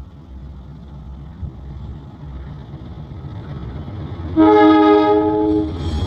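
Diesel locomotive horn sounding one loud blast about four seconds in, followed by a higher note near the end, over the rumble of the approaching train, which grows louder.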